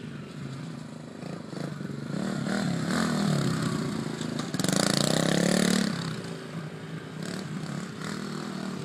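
Small dirt bike engine revving up and down as the bike rides past close by. It is loudest from about four and a half to six seconds in, then quieter and steadier as the bike moves off.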